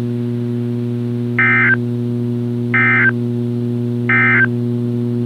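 Three short EAS/SAME end-of-message data bursts from NOAA Weather Radio, each about a third of a second long and about a second apart, closing the Required Weekly Test. They play over a steady electrical hum.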